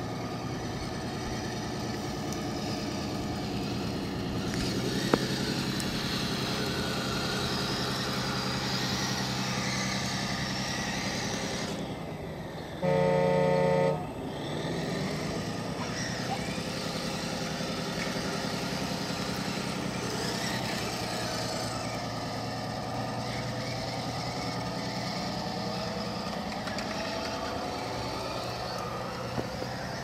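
Sound kit in a Kyosho Blizzard SR RC snowcat playing a steady simulated engine sound through its speaker while the model drives. About 13 seconds in, the kit gives one loud horn blast lasting about a second.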